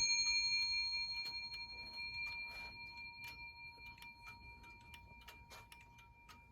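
The bell of a Hermle 241-080 time-and-strike clock movement ringing on and slowly dying away, with a scatter of small ticks from the movement.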